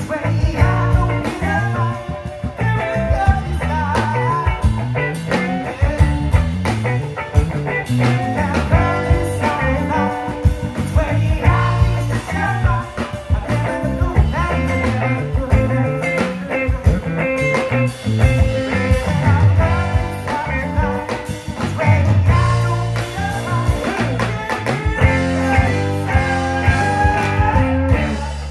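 Live rock band playing loudly through a PA: electric guitars, bass and a drum kit, with a singer's voice over them.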